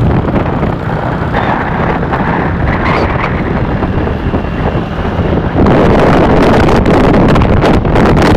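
Motorcycle riding at speed: the engine runs steadily under heavy wind noise on the microphone, which gets louder and harsher about five and a half seconds in.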